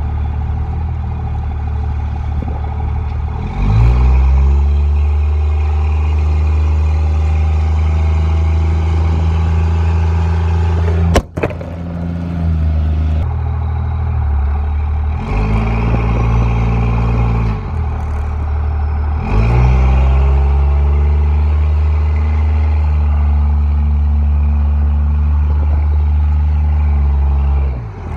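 Pickup truck's engine towing a loaded gooseneck trailer at low speed, pulling up in pitch and holding steady three times and easing off in between. A single sharp knock about eleven seconds in.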